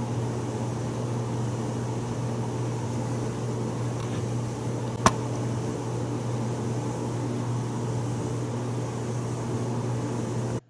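Steady low machine hum with a single sharp click about five seconds in.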